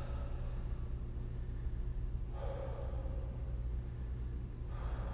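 A man straining through a long plank, breathing out hard twice, about two and a half seconds in and again near the end, over a steady low hum.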